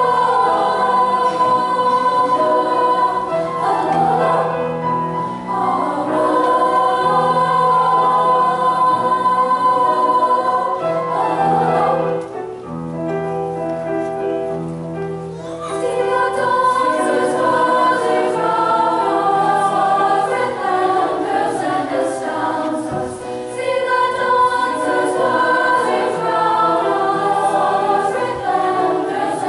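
School choir singing in sustained chords; the singing eases off about twelve seconds in and swells again a few seconds later.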